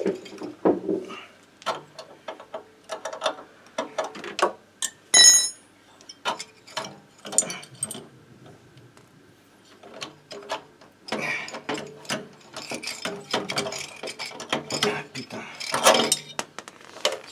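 Metal clicks, knocks and rattles of tools and loose parts being worked on a Motobécane moped engine as it is unbolted and freed from its frame, with one loud ringing metallic clink about five seconds in.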